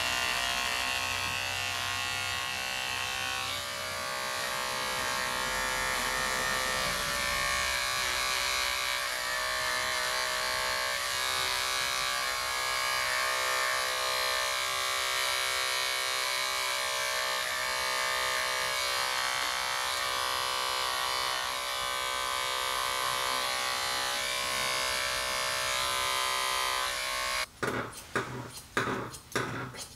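Cordless pet hair clipper running with a steady, even hum as it trims the fur on a dog's paw, then switched off about 27 seconds in. A few sharp scissor snips follow near the end.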